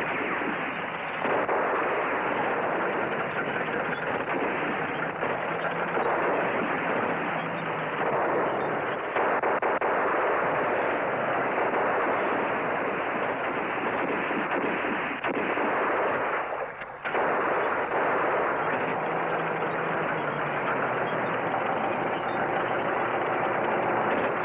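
Battle sound effects from an old war-film soundtrack: dense, continuous gunfire and explosions, with a bulldozer's engine running underneath. The din drops out briefly about seventeen seconds in.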